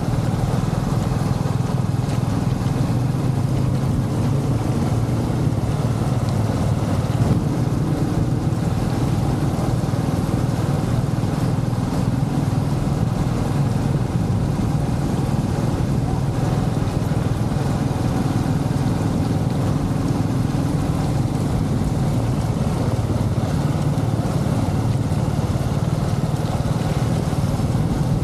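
Steady low rumble of wind and road noise buffeting a moving bicycle-mounted action camera's microphone on a wet street, with no change in level.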